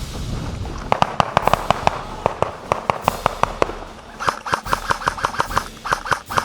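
Airsoft guns firing in a skirmish: a scatter of rapid snapping shots, then from about four seconds a steady full-auto stream at roughly seven shots a second.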